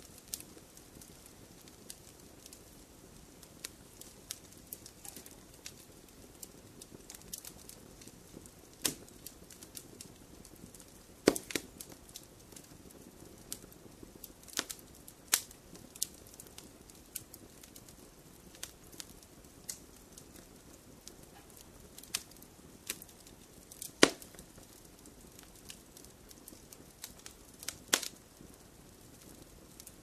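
Fire crackling in a fireplace: a soft, steady rushing hiss under scattered sharp pops and snaps, the loudest about eleven and twenty-four seconds in.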